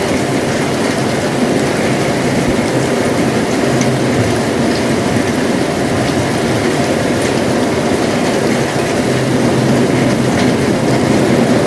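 Heavy rain falling steadily: a dense, even wash of noise with a deep, full body and no breaks.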